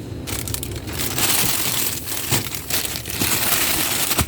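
Plastic crinkling and rustling as it is handled, with many irregular crackles.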